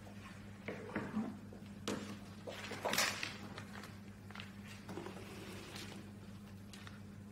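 Scattered knocks, clicks and rustling from objects and a cable being handled on a desk, over a steady low hum; the loudest rustle comes about three seconds in.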